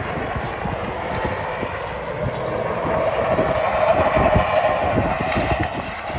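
A Dodge Ram 3500 pickup towing a loaded semi truck up a snowy ramp: the engines run under load and the tyres churn on snow, with a steady whine that grows louder about three seconds in.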